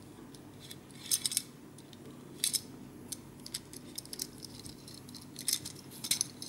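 Hard plastic LEGO Technic parts clicking and clattering as a turntable-based wheel hub is handled and turned in the hands. Scattered sharp clicks come in little clusters, about a second in, around two and a half seconds, and again near the end, over a steady low hum.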